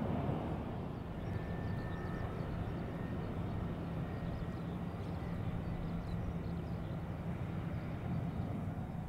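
Distant jet-engine rumble of a Boeing 787-8 with Rolls-Royce Trent 1000 engines climbing away after takeoff. The rumble is steady and drops a little about a second in.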